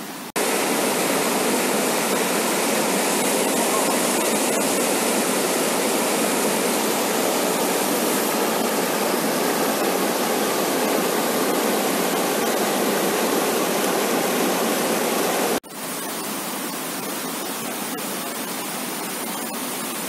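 Swollen, muddy monsoon floodwater rushing over rock ledges in steady, loud rapids. About three-quarters of the way through the sound cuts off suddenly and a quieter rush of flowing water follows.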